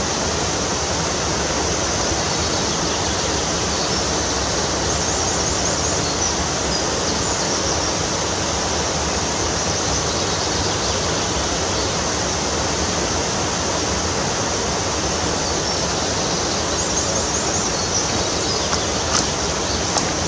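Steady rush of a mountain stream tumbling over a small waterfall, a constant full-bodied roar of water.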